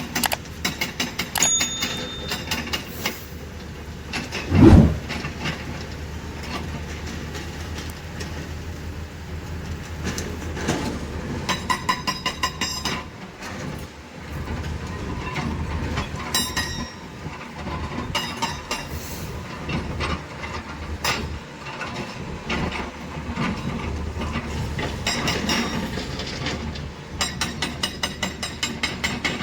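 Hydraulic rock breaker on a Tata Hitachi 470 excavator hammering rock, in bursts of rapid, evenly spaced blows over the steady drone of the excavator's diesel engine. There is one heavy thump about five seconds in.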